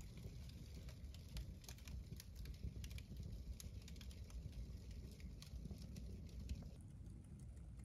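Fire of crumpled paper and bags burning in a fireplace, crackling with irregular sharp pops over a low rumble. A faint hiss under the crackle drops away near the end.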